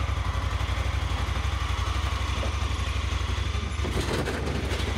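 Vehicle engine idling with a steady low throb, with a brief clatter about four seconds in.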